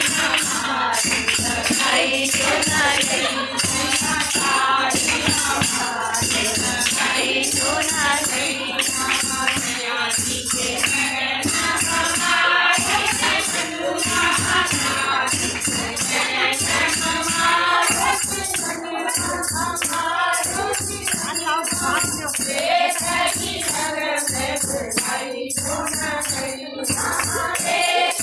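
A group singing a Holi song together, with percussion keeping a steady beat.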